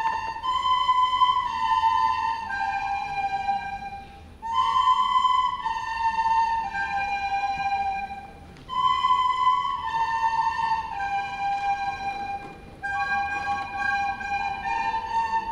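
Ensemble of recorders playing a slow melody together, in phrases of about four seconds with short pauses between them.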